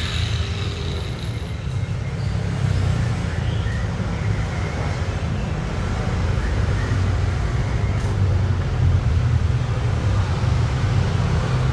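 Honda Jazz GE8's four-cylinder engine idling, a steady low exhaust rumble through its aftermarket resonator and muffler.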